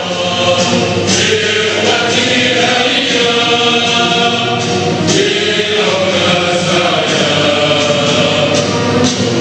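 Several voices singing or chanting together in chorus, continuous and sustained.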